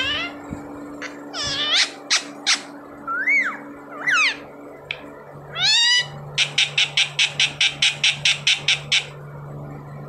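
Ring-necked parakeet calling: several loud swooping squawks over the first six seconds, then a fast run of about fourteen short, sharp notes, about five a second, that stops near nine seconds in.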